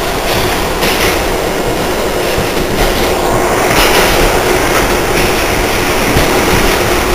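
NYC subway train running through an underground station: a loud steady rail rumble with a few sharp clacks of wheels over rail joints and a faint falling whine about halfway through.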